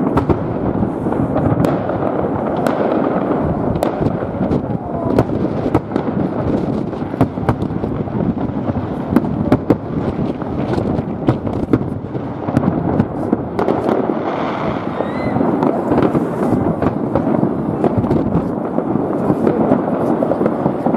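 Many New Year fireworks going off across a city at once: a continuous dense crackle and rumble, cut through by frequent sharp bangs, with a brief rising whistle about fifteen seconds in.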